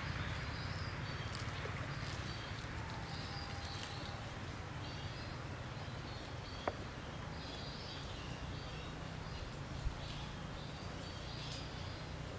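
Outdoor ambience: a steady low rumble under high chirps that come back about once a second, with two sharp clicks.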